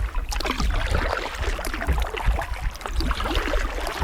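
Kayak paddle strokes in the water, with dripping and small splashes over a steady low rumble.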